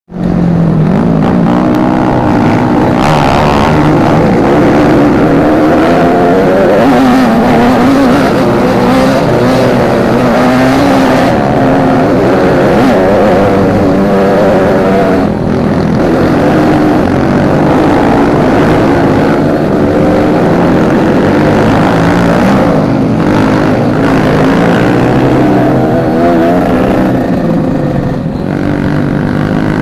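Several trail motorcycles running together, their engines revving up and down at different pitches.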